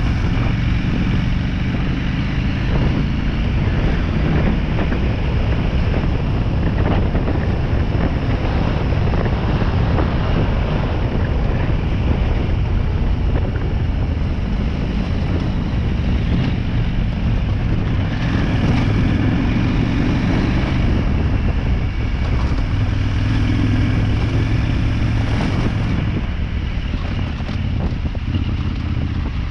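Motorcycle engine running steadily at low trail speed, pulling harder for several seconds about two-thirds of the way through.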